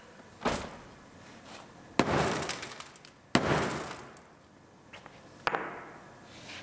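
Four sharp bangs against the crumpled sheet-metal door of a pickup truck, spaced a second or two apart, each with a short metallic ring: an attempt to force the jammed door open that does not succeed.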